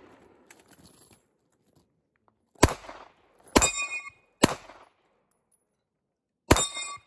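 Four pistol shots, the first three about a second apart and the last after a pause near the end. The second and fourth are followed by the ringing of hit steel targets.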